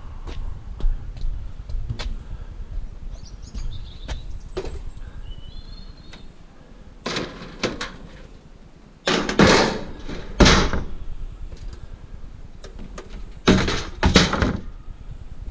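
Scrap metal being handled and tossed onto piles: scattered light knocks, then loud clattering clanks three times, the loudest about two-thirds in. Faint birdsong behind.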